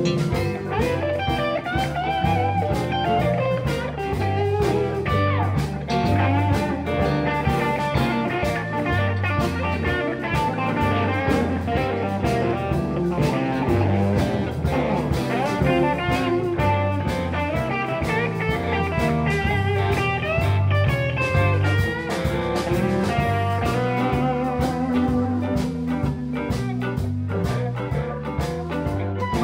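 Live blues band playing an instrumental: electric guitars and electric bass over a drum kit and keyboard. A bending lead line runs on top of a steady, repeating bass pattern.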